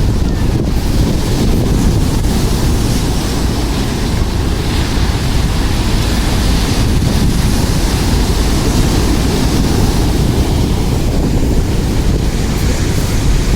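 Heavy typhoon surf breaking and washing over a pebble beach, a steady loud rush with a few swells. Wind buffets the microphone with a low rumble.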